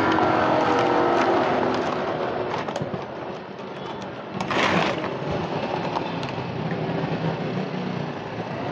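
Road traffic going by on the street: a vehicle passes in the first couple of seconds and fades, and a short hiss follows about four and a half seconds in.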